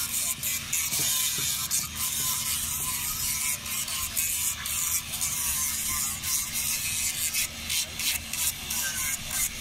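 Handheld electric power tool sanding a wooden carving: a steady abrasive hiss over a low motor hum, broken by many brief gaps as the tool lifts off the wood.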